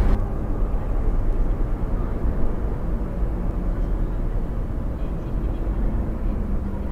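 Steady low rumble of vehicles driving, an engine-and-road drone with no distinct events.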